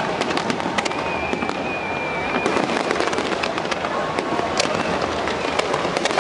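Fireworks display: dense crackling and popping of many shells bursting at once, with a thin steady whistle starting about a second in and lasting about a second and a half.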